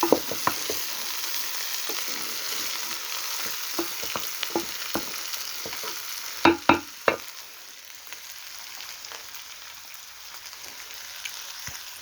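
Food sizzling in a cooking pot while it is stirred, the spoon knocking against the pot now and then, with a cluster of sharp knocks about six and a half seconds in. The sizzling is quieter in the second half.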